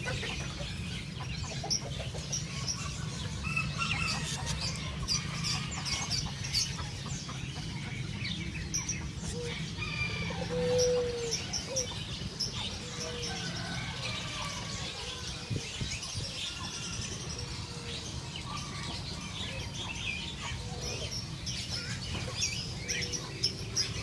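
Chorus of many caged songbirds, among them canaries, chirping and twittering without pause, with a few lower clucking calls from chickens and a steady low rumble underneath.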